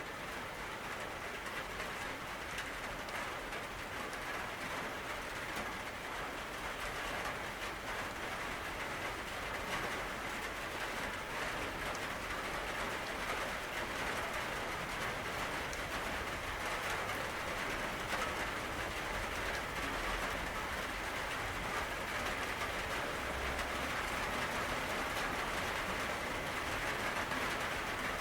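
Steady rain falling: a dense, even patter of raindrops that grows slightly louder toward the end.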